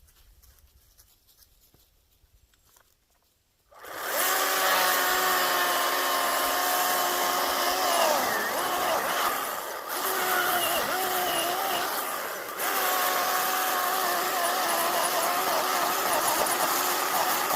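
Near silence for about four seconds, then a Ryobi 18V brushless battery chainsaw starts up and cuts into a dead tree trunk: a steady electric motor whine whose pitch wavers and sags as the chain bites, easing off briefly twice before running on.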